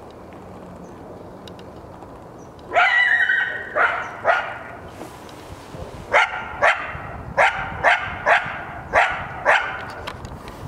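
Yearling male coyote barking in alarm at dogs nearby. One drawn-out bark-howl about three seconds in, then a string of about nine short, harsh barks in uneven groups.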